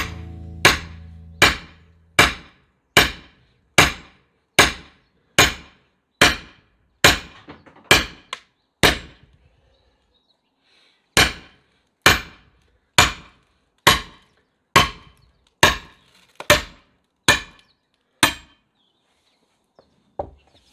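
Sledgehammer striking the back of an axe head sunk in a log round, metal on metal, driving the axe into the wood to split it. Steady strikes a little under a second apart, about a dozen, a short pause, then nine more.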